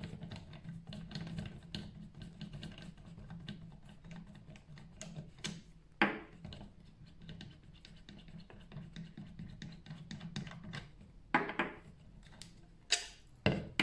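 Hands handling pressure-washer foam cannon connector fittings: light scratching and small clicks, with a sharp click about six seconds in and a few knocks near the end, over a steady low hum.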